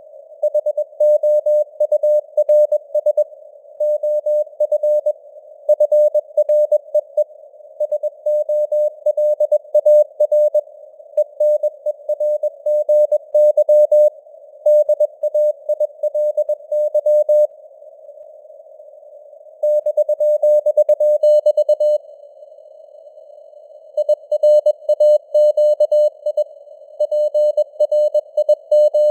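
Morse code sent at 21 words per minute as a keyed tone of about 600 Hz, over a narrow band of simulated receiver hiss, with the signal strength fading up and down (QSB). There are two longer pauses in the keying, one a little past the middle and one about three quarters of the way through.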